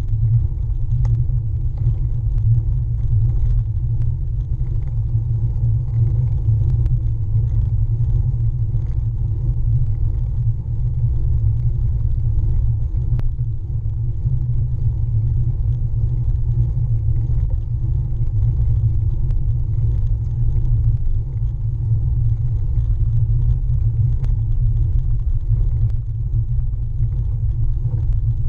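Steady low rumble of a road bike's tyres rolling on tarmac, carried through the frame to a camera mounted down by the rear wheel, with faint scattered ticks.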